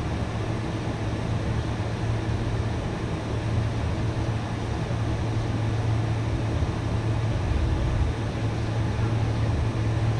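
Boeing 747's jet engines at taxi idle, heard inside the cabin as a steady low hum under an even rushing noise while the airliner rolls slowly along the taxiway.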